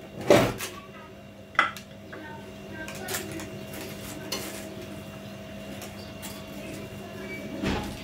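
Kitchen handling clatter: a sharp knock near the start and another about a second and a half in, then a few lighter clicks, as bread is handled on a baking tray at the counter, over a steady hum.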